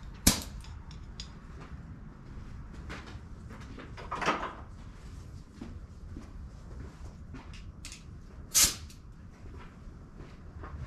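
A sharp clack, then two short hissing bursts of air about four seconds apart, with small clicks and knocks in between. These are an air chuck being fitted and pressed on a mower tire's valve stem to inflate it.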